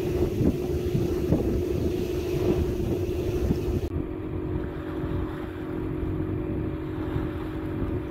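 Sailing yacht motoring with its engine running at a steady drone, with wind buffeting the microphone.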